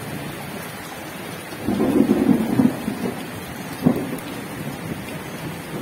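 Chicken satay sizzling over a charcoal grill as a steady hiss. A loud low rumble comes about two seconds in, and a sharp knock a couple of seconds later.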